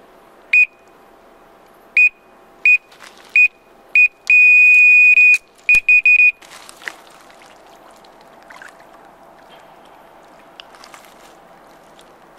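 Electronic carp bite alarm on a rod pod sounding a bite: five single high beeps at uneven intervals, then a continuous tone for about a second and four quick beeps, as a fish takes the bait and pulls line through the alarm. It stops about six seconds in, and fainter rustling and clicks follow.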